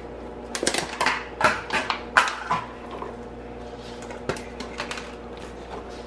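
Chopped carrots, onions and celery tipped from a plastic container into a slow-cooker crock over raw chicken. A quick run of light clicks and rattles comes in the first couple of seconds, then a few scattered clicks.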